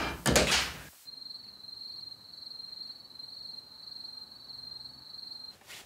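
A short, loud rush of noise in the first second. Then a steady, high-pitched insect trill, like a night cricket, for about four seconds, cutting off shortly before the end.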